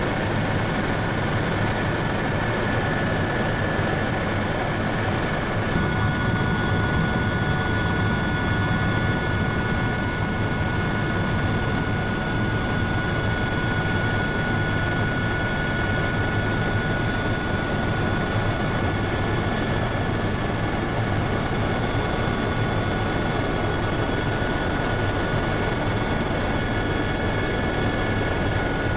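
Helicopter in cruise flight heard from inside the cabin: a steady, unbroken drone with several high, steady whining tones over it.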